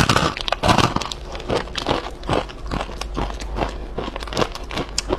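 Biting into a crispy puffed-corn and sesame bar, then chewing it: a loud crunch at the bite followed by a steady run of crisp, crackling crunches, close to a clip-on microphone.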